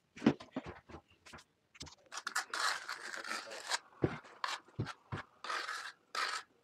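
Notched trowel scraping thinset mortar across the back of a wood-look floor tile in several short strokes. A few light knocks and clicks come first.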